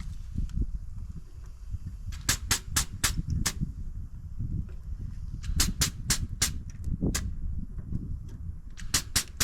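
Grease gun clicking in three quick bursts of about four sharp clicks a second as it pumps grease into a zerk fitting, over a steady low rumble.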